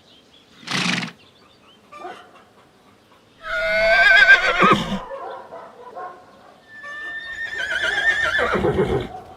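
A horse whinnying twice: the first whinny quavers in pitch, and the second starts high and falls away. A short noisy burst comes about a second in.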